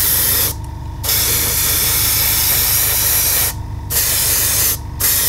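Gravity-feed airbrush spraying paint: a loud, steady hiss of air that stops briefly three times, about half a second in, at about three and a half seconds, and just before five seconds. A steady low hum runs underneath.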